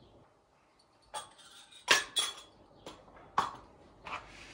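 Kitchen utensils clinking and knocking against a mixing bowl, several short sharp strikes after a quiet first second, the loudest about two seconds in.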